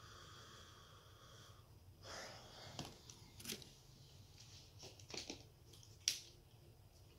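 Faint handling of a plastic water bottle: a few sharp crackles and clicks as the bottle is squeezed and the cap worked, the loudest about six seconds in. A breathy exhale comes about two seconds in.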